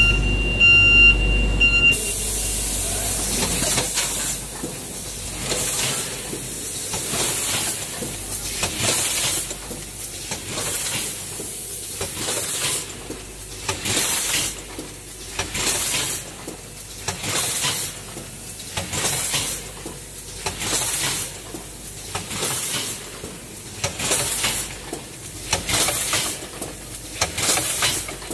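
Rotary zipper-pouch packing machine starting and running. A steady high beep sounds for about the first two seconds. Then short hisses of air from its pneumatic parts repeat about every second and a half, one per pouch cycle at about 35 pouches a minute, over the machine's steady running noise.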